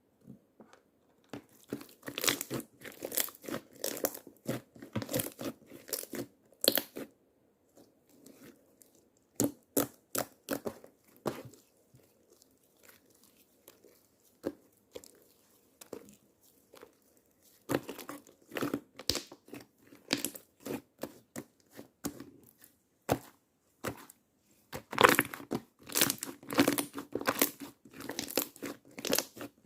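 Slime being squished, poked and stretched by hand, giving runs of quick crackling pops with short pauses between handfuls.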